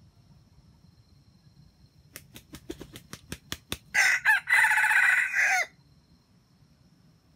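Red junglefowl rooster crowing: two short notes, then a longer one that drops in pitch at the end. Just before the crow come about ten sharp claps at an even pace, the wing-clapping a rooster gives before it crows.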